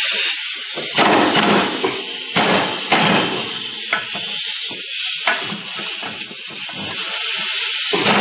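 Pneumatic impact wrench hammering in several long bursts with short pauses, over a steady hiss of air, working loose a rusted 17 mm nut through a chrome socket on a standard universal joint.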